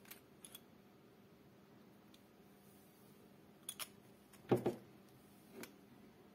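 Plastic handling noise from a finger-lancing pen turned in the hands: a few faint light clicks, then a dull knock about halfway through, the loudest sound, and a lighter knock about a second later as the pen is brought down to its hard plastic case.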